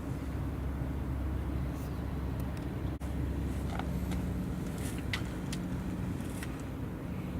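A steady low engine rumble with a few faint clicks and ticks scattered over it.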